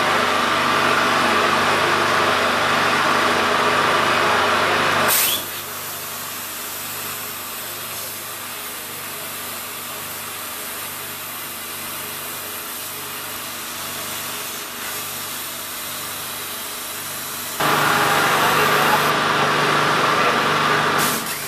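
CNC plasma cutter cutting steel plate: a loud steady hiss of the plasma arc and its air jet. It drops suddenly to a quieter steady machine hum about five seconds in and comes back loud about four seconds before the end.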